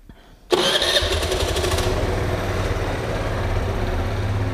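Suzuki Let's 4 fuel-injected 50 cc four-stroke scooter engine starting suddenly about half a second in, then running steadily at idle.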